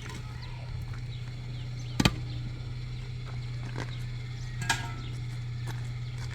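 Sharp knocks, the loudest about two seconds in and another near five seconds, over a steady low hum.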